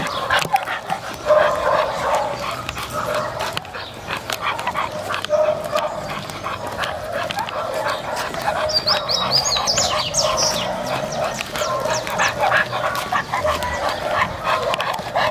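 A dog whining and yelping over and over.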